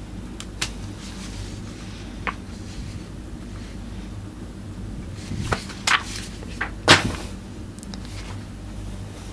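Paper instruction manuals and a plastic CD sleeve being handled: a few scattered clicks and rustles, the loudest about seven seconds in, over a steady low hum.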